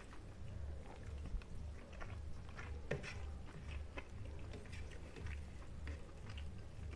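Close-up chewing of a mouthful of rice and omelette, a steady rhythm of soft chews with wet mouth clicks and smacks, and light sounds of fingers gathering food on the plate.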